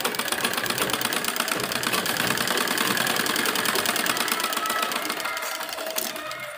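Sewing machine running at a fast, steady stitching rhythm as a sleeve is sewn along the armhole seam, stopping near the end.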